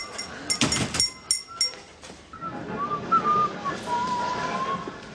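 A few sharp metallic clinks in the first couple of seconds, then a person whistling a wavering tune that carries on to the end.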